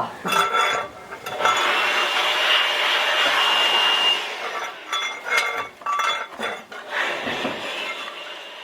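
Hand tools knocking and clinking with a metallic ring during clean-up work, with a steady scraping noise lasting a couple of seconds in between.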